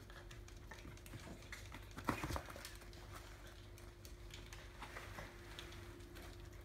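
A group of miniature schnauzers moving about on a rug and wooden floor: soft, scattered clicks and pattering of paws and claws, with one short louder sound about two seconds in.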